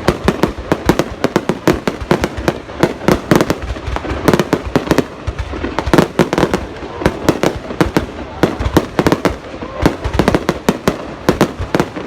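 Fireworks display: a dense, unbroken barrage of shell bursts, several sharp bangs a second.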